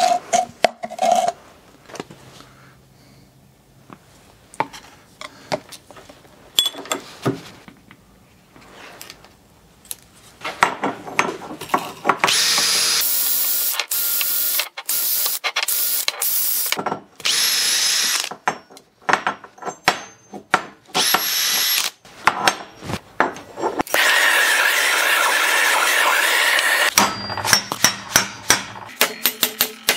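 Short, loud bursts of gas hissing from a nozzle, several with a faint high whistle, then one longer hiss of about three seconds. Small metal parts clink on the workbench between the bursts and after them.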